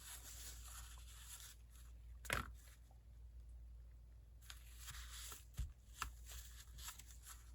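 Quiet handling of paper and card as a glued piece is pressed down onto a journal page: soft rustles and light taps, with one sharper crackle about two seconds in and a couple of small knocks near the end.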